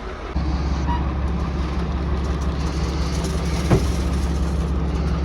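Farm tractor engine running steadily with a low drone that steps up in level about a third of a second in, with one short knock partway through.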